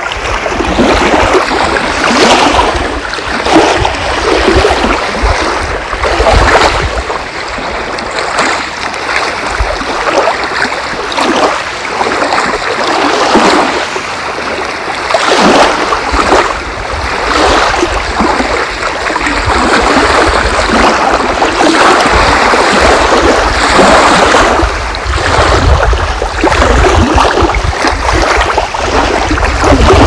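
Small lake waves lapping and splashing at the shore close by, in irregular surges every second or two, with wind rumbling on the microphone at times.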